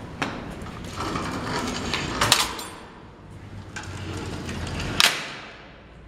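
Metallic clanks and rattles of an old elevator's collapsible scissor gate being handled. The loudest clank comes a little over two seconds in, with a brief ring after it, and another sharp clack comes near five seconds.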